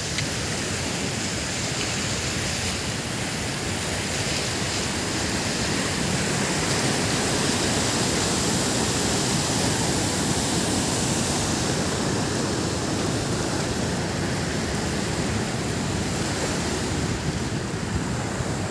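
Water rushing over rocks below a dam in white-water flow, a steady noise that grows somewhat louder toward the middle and eases off near the end.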